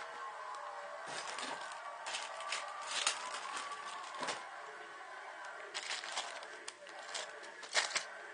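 Plastic LEGO bricks clicking and rattling in irregular bursts as loose pieces are sifted through by hand, with a faint voice in the background.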